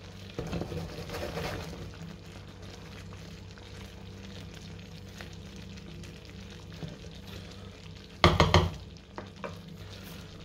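Wooden spoon stirring and basting meatballs in a pan of thick cream sauce simmering on low heat, with a soft sizzle over a steady low hum. About eight seconds in comes a quick cluster of loud knocks.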